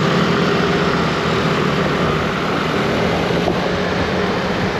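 Motor scooter engine running steadily as it rides through city traffic, with road noise.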